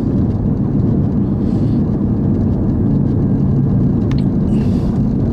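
Van driving, heard from inside the cab: a steady low rumble of engine and road noise.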